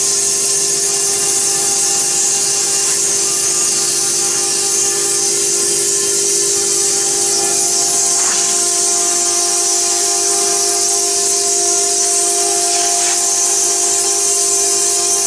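Stone CNC router spindle engraving into a stone tombstone slab under water coolant: a steady high whine from the spindle over the hiss of the bit grinding wet stone.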